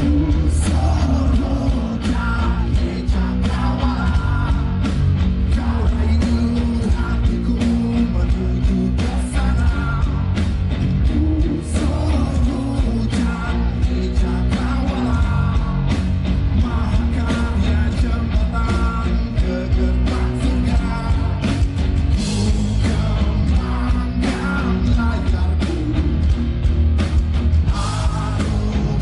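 Rock band playing: electric guitars, bass and drum kit, with a male lead singer.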